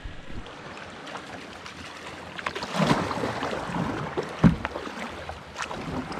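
A kayak paddled on fast-moving river water: paddle splashes and water washing past the hull, with two knocks about three and four and a half seconds in, the second the loudest.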